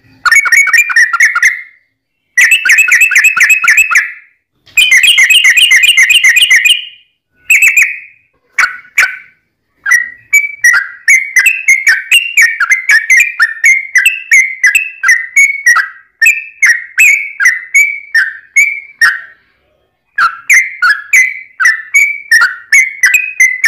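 Yellow-vented bulbul (trucukan) song, played back very loud: quick bubbling trilled phrases in bursts with short pauses, then a long run of rapid chattering notes about three or four a second, breaking off briefly near the end.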